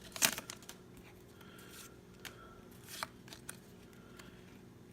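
Pokémon trading cards being handled and slid against each other, with soft rustles and a few light clicks. A short, louder rustle comes just after the start.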